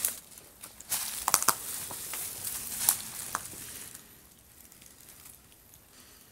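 Dry brush and dead twigs crackling and snapping underfoot as someone pushes through them, with several sharp cracks in the first three seconds. It goes quieter after about four seconds.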